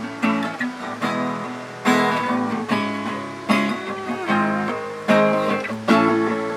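Guitar music: chords strummed on an acoustic guitar, each strong strum coming about once a second.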